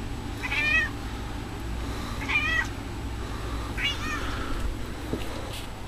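Domestic cat meowing three times, about a second and a half apart, each meow short with a wavering pitch.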